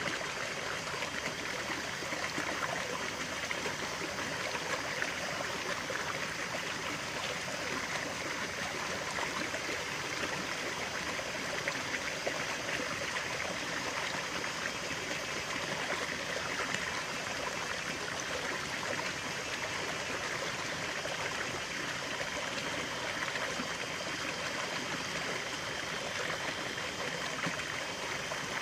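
Running water of a stream, flowing and trickling steadily.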